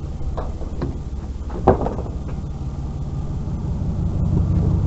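A vehicle engine idling with a steady low hum. One sharp knock comes about a second and a half in, with a few lighter clicks around it.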